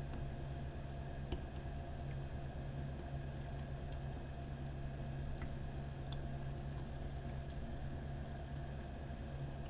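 Humidifier running with a steady low hum, with faint scattered small pops and drips of water throughout.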